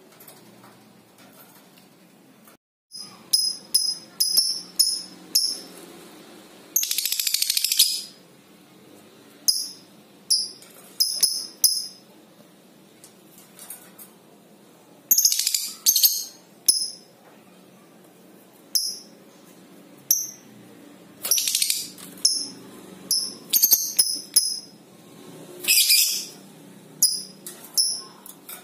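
Fischer's lovebird calling: sharp, high chirps in quick runs, broken by long rattling chatters of about a second, near 7, 15, 21 and 26 seconds in. This is the 'ngekek' chatter a lovebird gives when it meets a rival.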